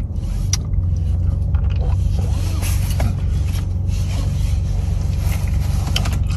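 Car running, heard from inside the cabin: a steady low rumble with a few faint clicks.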